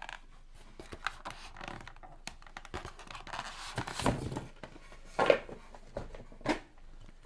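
Close-miked ASMR handling sounds: scattered taps, clicks and scratches, with louder scraping or rustling swells about four, five and six and a half seconds in.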